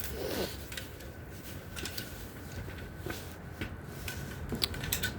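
Faint scattered rustling and clicking of handling and moving about, over a faint steady high tone.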